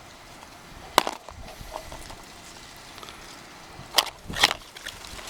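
A small cardboard product box being handled: one sharp click about a second in and two more close together near the end, over a low rumble of wind on the microphone.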